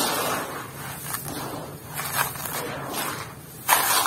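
Hands raking and stirring dry, coarse crumbled block grit in a large basin: a gritty rustling and scraping that swells and fades with each stroke, with a louder, sharper rush of grains near the end.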